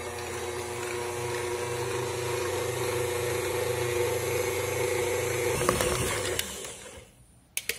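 Stand mixer running steadily, its wire whisk beating eggs into warm choux pastry dough, growing slightly louder as it goes. The motor stops about six seconds in, with a few light clicks.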